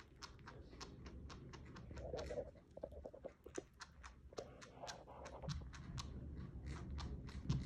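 Chinchilla chewing a chunk of banana: quick, noisy clicking and smacking of its teeth, about four bites a second.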